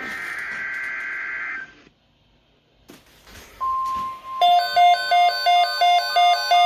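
Emergency Alert System SAME header data burst on a weather radio, a buzzy warbling two-tone screech lasting under two seconds. After a short pause a steady alert tone starts, and then the receiver's electronic alert sounds as a rapid repeating pattern of beeping notes, announcing a severe thunderstorm watch.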